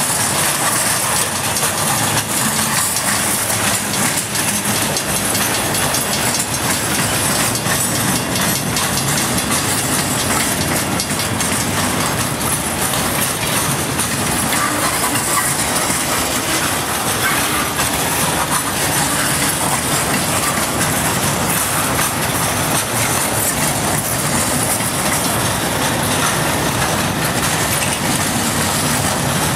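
Freight train boxcars rolling past close by: a steady, loud rumble and rattle of steel wheels on rail, with many clicks of wheels running over rail joints.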